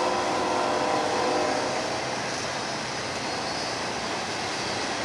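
BNSF double-stack intermodal container train rolling past close by, a steady rumble and rush of steel wheels on rail. A ringing whine rides over the rolling noise for the first second or so, then fades.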